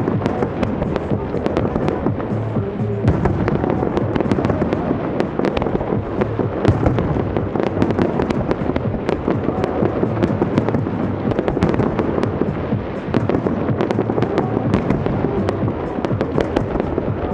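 Fireworks display going off continuously: a dense, unbroken stream of crackles and bangs, many per second.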